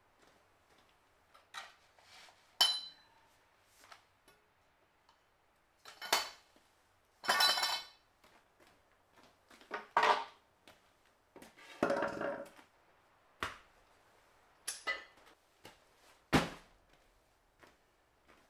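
Iron weight plates and other gym gear clinking, knocking and scraping as they are handled, set down and shifted on a concrete floor: irregular separate knocks, a sharp metal clank about three seconds in and a longer scrape near the middle.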